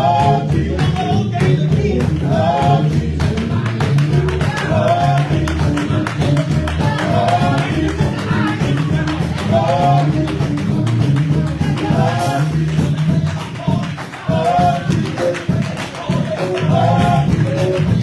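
Gospel group singing over a live band with bass and percussion, a short melodic phrase coming round about every two and a half seconds.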